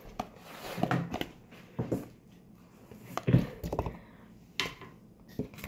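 Close handling noise: a sleeved arm brushing and bumping against the phone, giving scattered knocks and rustles, louder about a second in and again past the middle.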